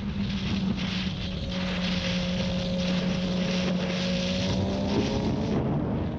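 Suzuki GSX-R sportbike engine running at steady revs while cruising, with wind rushing over the microphone.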